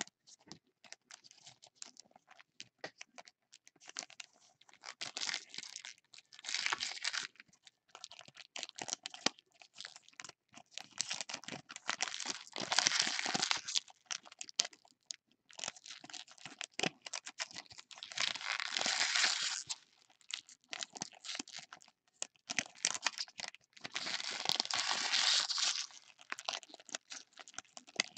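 Foil trading-card packs being ripped open and crinkled by gloved hands, with crackling and clicks from handling the wrappers and cards. There are four loud rips, about six seconds apart.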